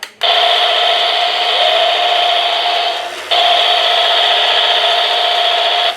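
Adventure Force toy rifle's electronic sound effect playing through its small speaker: a loud, steady buzzing rattle with a held tone. It runs about three seconds, breaks off briefly, then starts again.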